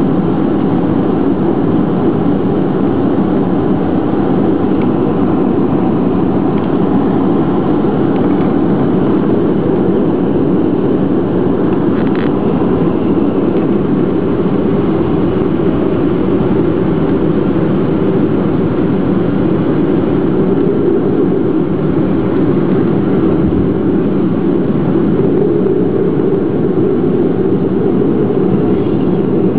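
Steady cabin noise inside a Boeing 737-500 airliner, its CFM56 jet engines running at low thrust as the plane taxis. The noise is even and unchanging, with no spool-up.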